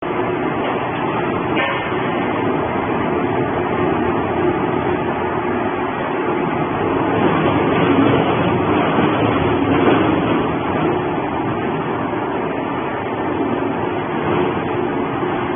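Industrial shredder running steadily with a dense mechanical noise and a faint hum underneath, while cardboard boxes are loaded into its hopper.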